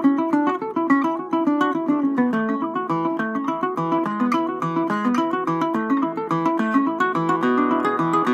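Requinto jarocho, the small Veracruz plucked lute, played solo with a long plectrum: a fast, continuous run of single picked notes in a son jarocho melody.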